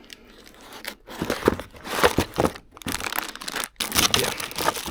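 Packaging crinkling and tearing as parts are unpacked from a box, a dense irregular crackle that starts about a second in.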